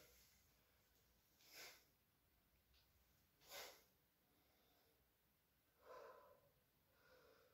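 Near silence with about four faint breaths spread a second or two apart.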